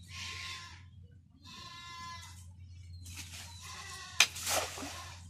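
Hand-thrown round cast net landing on pond water with a sharp slap and a short splash about four seconds in. Before it, two animal calls in the first two seconds.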